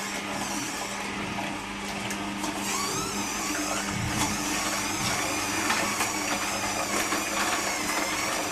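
Kuvings slow cold-press juicer running with a steady motor hum as its auger crushes produce.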